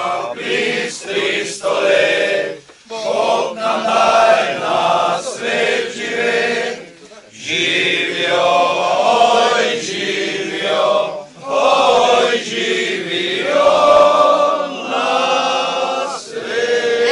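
A group of men singing a song together in chorus, in long held phrases broken by short pauses for breath.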